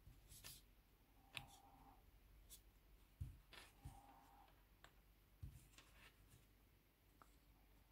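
Near silence with faint, scattered clicks and a few soft taps from hand crocheting, a crochet hook working through cotton yarn. Two of the clicks, about a second and a half and four seconds in, ring briefly.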